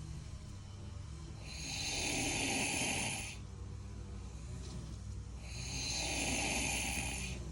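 A man snoring: two long snores about four seconds apart, each lasting about two seconds, the first about a second and a half in and the second near the end.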